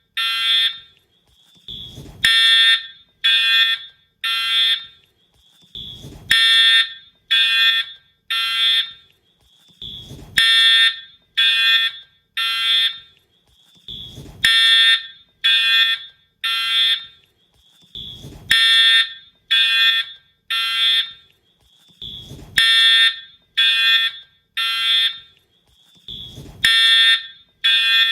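Wheelock fire alarm horn/strobe sounding the temporal-3 evacuation pattern: three loud, harsh horn blasts about a second apart, then a pause, repeating about every four seconds. A faint low thud comes just before each group of three.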